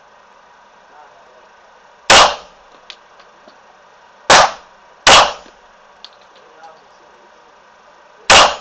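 Glock pistol in .40 S&W firing four single shots at an uneven pace: one about two seconds in, two close together near the middle, and one near the end. Faint small ticks come between the shots.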